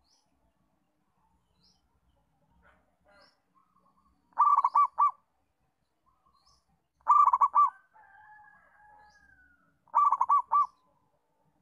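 Zebra dove (perkutut) singing: three bursts of quick staccato coos, each a run of four or five notes, about three seconds apart. A fainter, drawn-out gliding call follows the second burst, and faint high chirps of a small bird come in between.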